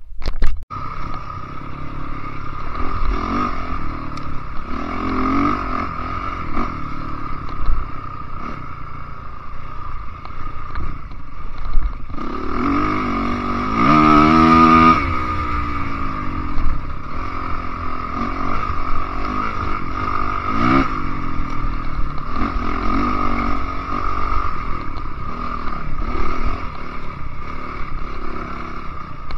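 Enduro dirt bike engine revving up and down as it is ridden hard over rough ground, with a strong rising run of revs about halfway through. Rattles and scrapes from the bike over the bumpy trail, and a sharp knock at the very start.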